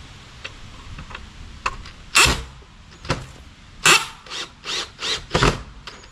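Cordless drill driving a screw into a plywood panel in short trigger bursts, about seven of them starting about two seconds in, some much louder than others.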